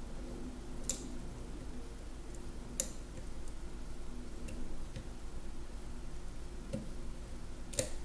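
Small, sharp metallic clicks, about six spread unevenly over several seconds, as the plug of an EVVA MCS magnetic lock cylinder is eased out of its housing, over a faint low hum.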